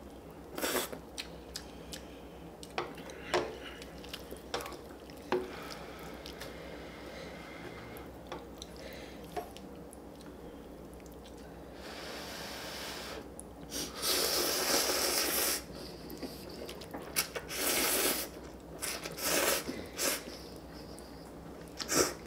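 People eating instant ramen: several long, loud slurps of noodles and broth in the second half, with short clicks and wet chewing noises in between.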